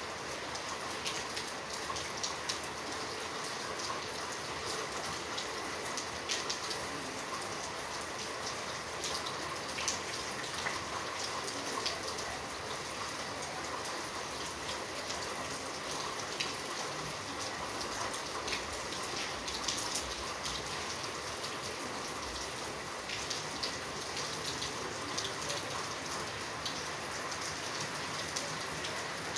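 Steady rainfall, a continuous hiss with many individual drops ticking sharply on a surface close by.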